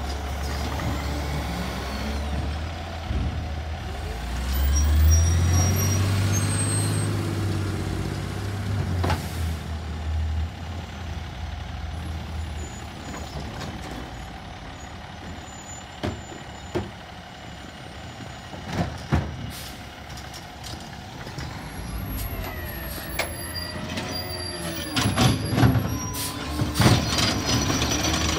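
Automated side-loader garbage truck's diesel engine running, revving up for several seconds as the hydraulic arm lifts a wheeled cart. Scattered sharp clanks follow as the cart is dumped and set back down, with a cluster of louder knocks near the end.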